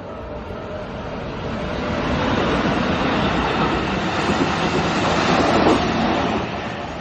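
Keikyu Line electric train passing over a level crossing: its noise builds over the first two seconds, stays loud, then falls away near the end. The crossing's warning bell rings steadily underneath.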